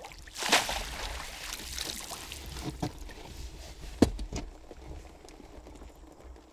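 A short burst of water splashing about half a second in, then scattered knocks, with one sharp knock about four seconds in, over a steady low rumble.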